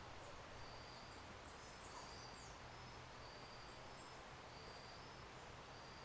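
Faint outdoor garden ambience: a thin high note repeating evenly about once every second and a half, with a few faint high chirps from small birds around one to two seconds in and again near four seconds.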